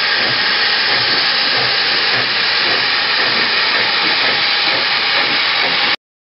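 LNWR Coal Tank 0-6-2T steam locomotive hissing steam loudly and steadily. The sound cuts off abruptly near the end.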